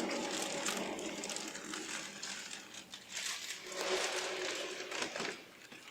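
A milling machine's motor hum dies away over the first couple of seconds. Uneven rustling and crinkling follows.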